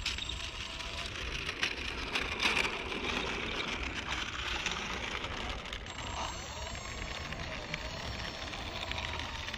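A small RC cargo airplane touching down and rolling on a concrete runway, with crackling and scraping in the first few seconds, and wind on the microphone throughout. A faint motor whine rises and falls near the end.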